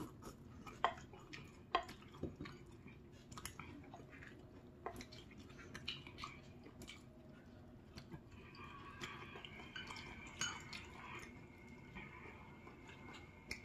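Quiet eating sounds: chewing and utensils clicking against a bowl while picking out rice cakes and noodles, with a faint high whine through the second half.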